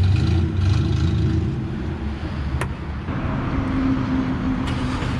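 Car engine running close by, a heavy low rumble at first that settles into a steadier, quieter idle, with one sharp click about two and a half seconds in.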